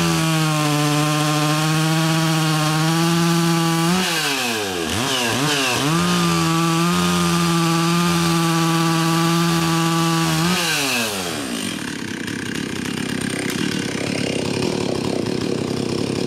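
Stihl 036 two-stroke chainsaw running at high revs, its pitch dipping and recovering several times as it loads in the cut. About eleven seconds in the revs fall away and a quieter, rougher sound without a clear pitch follows.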